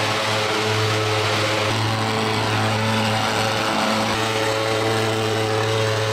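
Small engine of a handheld thermal fogging machine running steadily, a loud, even, low drone with a hissing rush on top, as it sprays disinfectant fog.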